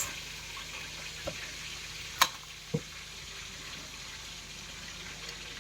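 Quiet background hiss broken by a few small handling sounds: a faint click, then a sharp click about two seconds in, with a soft low knock just after.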